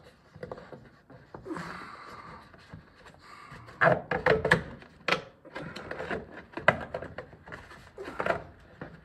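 Stiff plastic wheel-well liner being pushed and wiggled past a rear shock absorber, scraping and rubbing against the body and suspension. A burst of sharp plastic knocks and clacks comes about four seconds in, then a couple of single knocks near the end.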